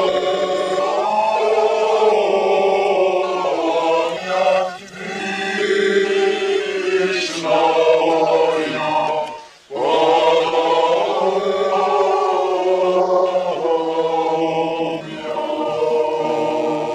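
A congregation of men and women singing a liturgical church chant together, unaccompanied, in long held phrases with one short break for breath about ten seconds in.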